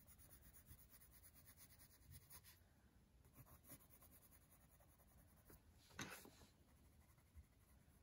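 Faint scratching of a pencil on paper as the beak is shaded in short strokes, close to silence, with one slightly louder stroke about six seconds in.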